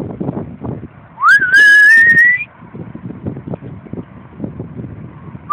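A person gives one loud whistle lasting about a second, starting about a second in. It rises quickly, then keeps climbing slowly in pitch. Low, uneven background noise runs underneath.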